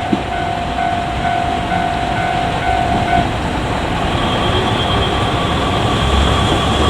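KiHa 147 and KiHa 47 diesel railcars running past a level crossing, a steady train noise throughout, with the crossing's warning bell sounding in a regular repeating pattern over it.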